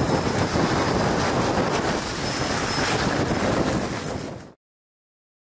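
Steady rushing noise of a dog sled running over a snowy trail behind its husky team, with the sled's motion and wind on the microphone, fading slightly and then cutting to silence about four and a half seconds in.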